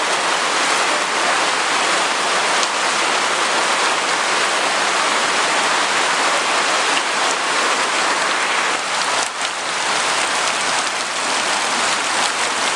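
Rain falling steadily onto puddles and waterlogged ground, an even hiss of drops striking standing water.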